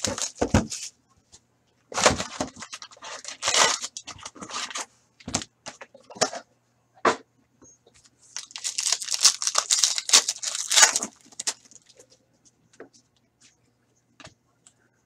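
A cardboard box of trading cards being torn open and its foil-wrapped packs taken out, then a foil pack ripped open. Bursts of tearing and crinkling, with a few short sharp snaps in between.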